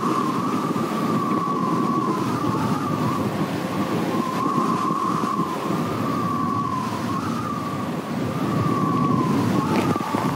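Wind whistling in a sailboat's rigging, a wavering tone that slowly rises and falls, over the steady rush of wind and heavy seas.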